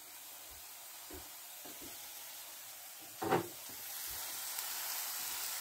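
Raw dog-food meatball frying in coconut oil in a pan, sizzling steadily, the hiss growing louder from about four seconds in. A loud knock about three seconds in, with a few light knocks before it.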